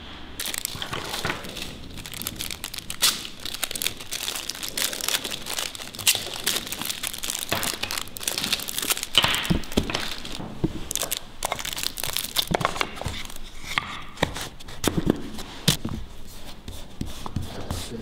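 Clear plastic wrapping crinkling and crackling as it is handled, a dense run of irregular sharp crackles starting just after the beginning.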